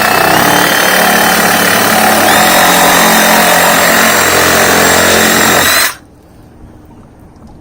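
Power saw cutting through PVC pool plumbing pipe: a loud, steady cutting noise with a motor whine that steps up in pitch twice, stopping abruptly about six seconds in.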